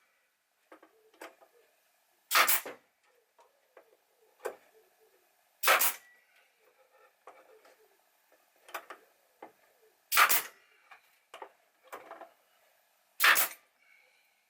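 A brad nailer firing four brads into a wooden toolbox base, each a sharp shot, a few seconds apart. Softer clicks and knocks come between them as it is moved along the wood.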